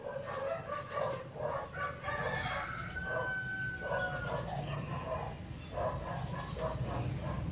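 Farm animals calling: a run of short, repeated calls, with one longer held call about three seconds in.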